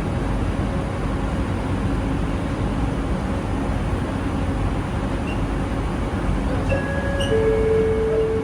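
Cabin of a Bombardier Innovia ART 200 train running at speed, a loud steady rumble of wheels, rails and tunnel noise. A few steady whining tones from its linear induction motor drive come in near the end.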